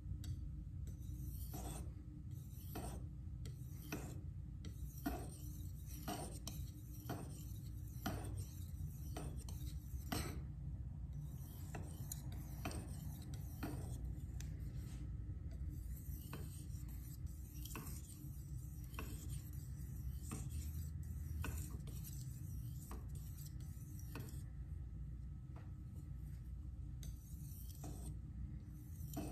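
Steel knife blade drawn in repeated strokes across a Naniwa Pro whetstone, a dry scrape about once or twice a second, with softer continuous scraping for a few seconds in the middle.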